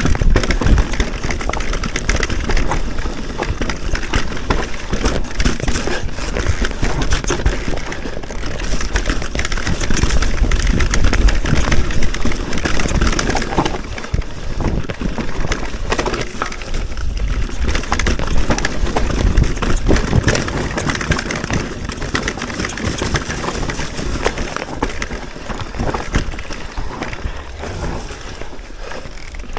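Enduro e-mountain bike running down a rough trail: tyres crunching and clattering over loose rock and gravel, with many small knocks and rattles and a heavy low rumble throughout.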